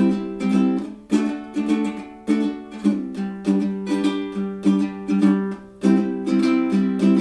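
Ukulele strummed in chords in a steady rhythm, each stroke ringing out before the next.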